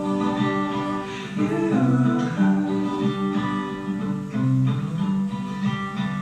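Music: a plucked guitar playing sustained notes and chords.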